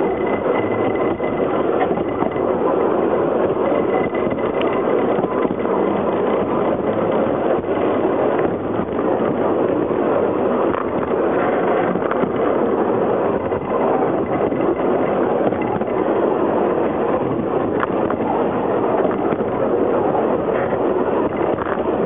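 Narrow-gauge railway carriage running along the track: a steady noise of wheels on rails, with a few faint clicks.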